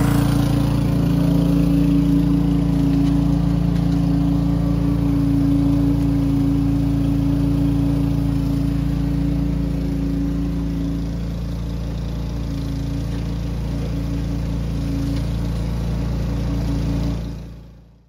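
Frick sawmill running with a steady mechanical drone, fading out near the end.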